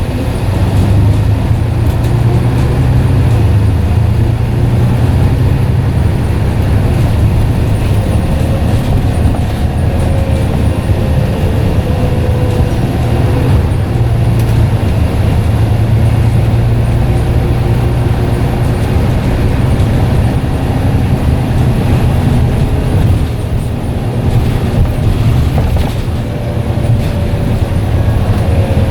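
Scania N94UD double-decker bus's diesel engine running steadily under way, with a deep hum and a faint whine that glides up and down in pitch twice.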